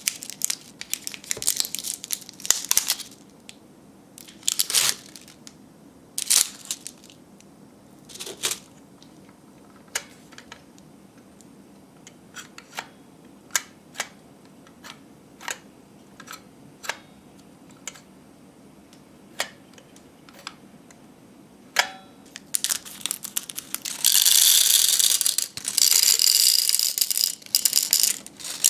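Small cellophane candy packets crinkling as they are pulled out of a plastic toy's compartments, then scattered light clicks and taps of a hollow plastic case being handled. Near the end comes a loud, dense rattle of small hard mints poured into the plastic machine.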